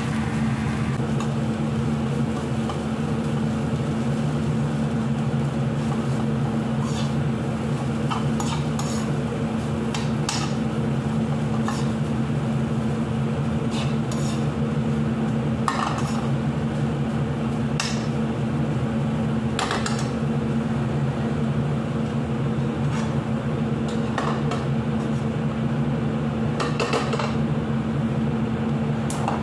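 A metal spoon scraping and clinking against non-stick frying pans as a vegetable filling is stirred, and the pans are moved about on the gas stove's grates, giving scattered clinks and knocks. Under it runs a steady low hum.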